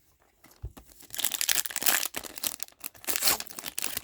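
Plastic wrapping crinkling and tearing as a hockey card blaster box or its packs are opened, starting about a second in with irregular crackles.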